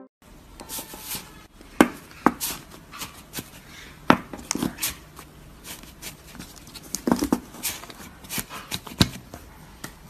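Irregular crisp crackles and clicks as fingers press into and crush a soft, crunchy green foam packed in a cup.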